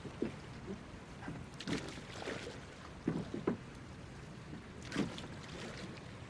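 Scuba divers' regulator exhaust bubbles heard underwater: several short crackling bubble bursts at irregular intervals over a steady hiss.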